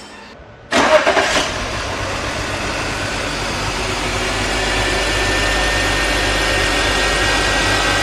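BMW 325i's inline-six engine starting cold, flaring briefly about a second in, then settling to a steady idle with a low rumble and a thin steady whine above it. The cold idle has the slight shake of random multiple-cylinder misfires, later traced to fuel injectors delivering uneven amounts of fuel.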